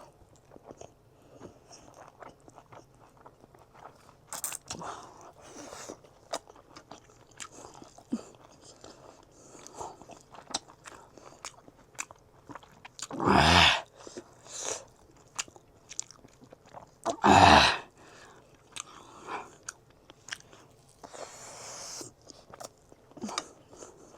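Close-miked chewing and biting of rice and chicken chilli, with many small wet mouth clicks. Twice, a few seconds apart after the middle, a louder noise lasts under a second.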